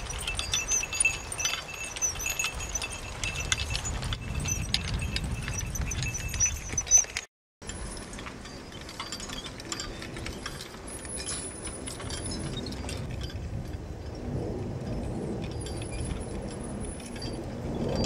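Trace chains and harness metal of Belgian draft horses clinking and jingling as they pull a chain-hitched harrow. About seven seconds in the sound cuts out briefly, then fainter clinking and rattling follows from a single horse drawing an antique seeder.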